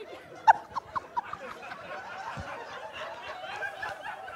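A person laughing in short, rhythmic bursts for about the first second, giving way to a murmur of audience laughter and chatter.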